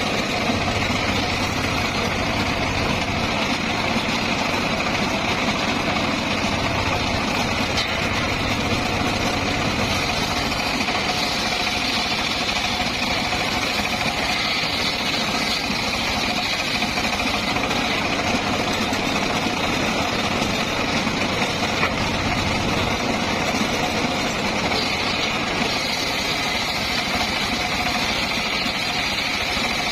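Homemade circular sawmill's engine running steadily, a constant drone with a steady high whine over it.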